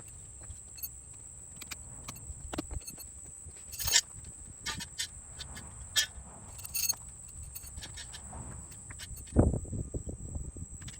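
Scattered knocks and clicks of hand work, the loudest about 4, 6 and 9.5 seconds in, over a low rumble and a steady high-pitched tone.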